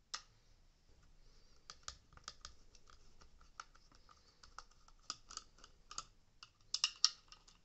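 Irregular light clicks and taps of a small Torx T8 screwdriver working screws out of a Dyson V8's plastic handle housing, in scattered clusters with the loudest near the end.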